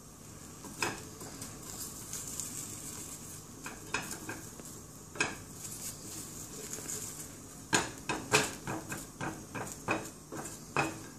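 Black plastic slotted spatula knocking and scraping against a Gotham Steel nonstick frying pan in scattered sharp clicks, coming thicker over the last few seconds, over a faint steady sizzle of an egg frying.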